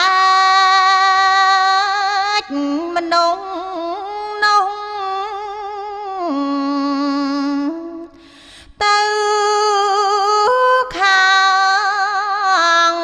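A woman chanting Khmer smot, a Buddhist dharma verse sung unaccompanied in long held notes with a wavering vibrato and slow steps in pitch. She breaks off briefly for a breath about eight seconds in.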